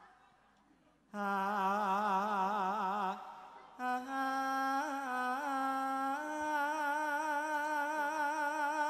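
Unaccompanied solo voice singing jathilan-style held notes, each sustained for a few seconds with a slow, wavering ornament in pitch. It comes in after about a second of near silence, breaks off briefly about three seconds in, and steps up in pitch near the end.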